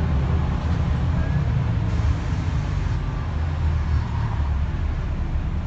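Scania N94UD double-decker bus heard from inside the cabin while moving: the five-cylinder diesel engine runs with a steady low rumble, under a hiss of tyres on a wet road.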